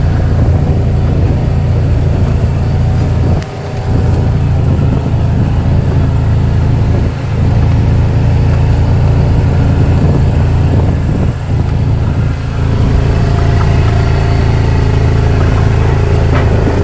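A motor vehicle running steadily on the move, with a loud, steady low rumble that dips briefly a few times.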